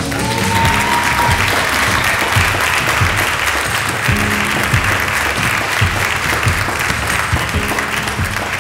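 A crowd of guests applauding steadily, over background music.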